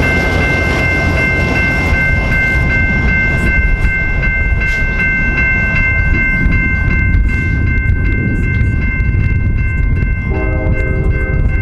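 An electronic railroad-crossing bell rings as a steady high tone over the low rumble of a passenger train with an EMD F59PHI diesel locomotive pulling away from the crossing. About ten seconds in, a chord-like train horn sounds for about a second, more faintly.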